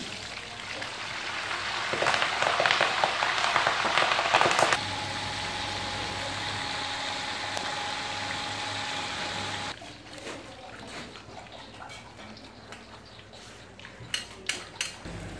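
Hot oil in a wok sizzling and crackling as green leaves are fried, loudest and most spattering a few seconds in, then a steadier sizzle. The sound changes abruptly twice at cuts, ending quieter with a few sharp clicks near the end.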